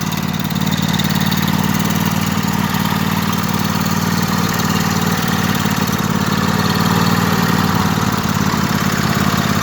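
1998 Craftsman LT1000 lawn tractor engine running steadily, just caught after a long hard start.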